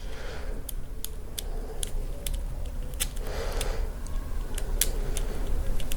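Small screws and a handheld screwdriver being handled: irregular light clicks and taps, with a few soft rustles.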